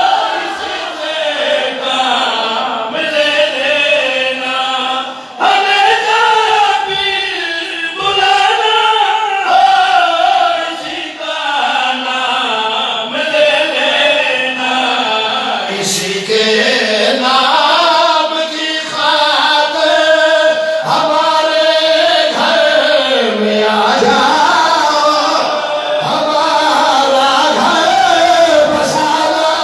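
Men singing a devotional chant into microphones, one lead voice holding long notes that slide up and down in pitch, with other voices joining in.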